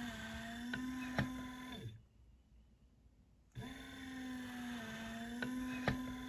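The LRVent ventilator's motor driving its bag-valve-mask squeeze in a repeating cycle. Each stroke is a steady hum lasting about three seconds, with a couple of clicks near the end, then about a second and a half of pause before the next stroke starts.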